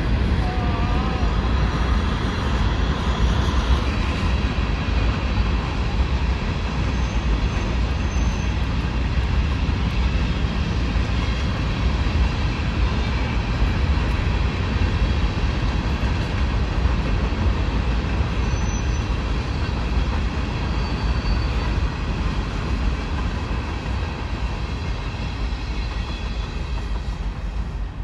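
Long freight train of covered hopper cars rolling past: a steady rumble of wheels on the rails.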